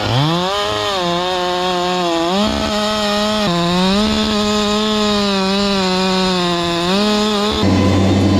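Two-stroke chainsaw revved quickly to full speed and held there cutting oak logs, its pitch sagging and recovering a few times under load. About seven and a half seconds in it gives way to a lower, steady engine drone.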